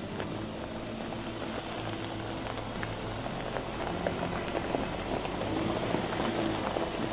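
Jeep Wrangler rolling slowly over gravel, its tyres crunching and popping small stones under a low engine note, growing louder as it draws close in the second half.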